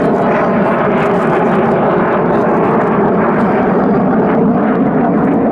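Steady, loud jet roar from a Hongdu L-15 trainer's twin Ivchenko-Progress AI-222K-25F afterburning turbofans as it flies a display manoeuvre overhead.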